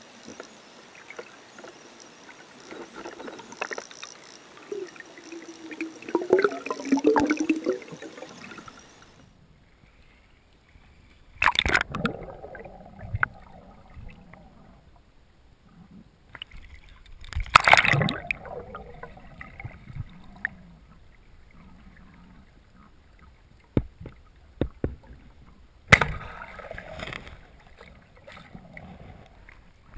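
Underwater water sounds picked up by a diving camera: low gurgling and sloshing, broken by three loud rushing bursts of water, about a third of the way in, just past the middle and near the end.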